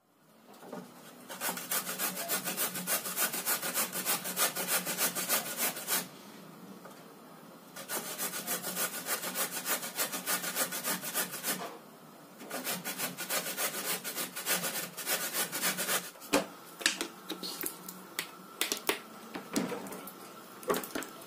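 A carrot being grated on a stainless steel box grater: quick rasping strokes in three runs, with short pauses between them. For the last few seconds the rasping gives way to a few scattered knocks and clatters.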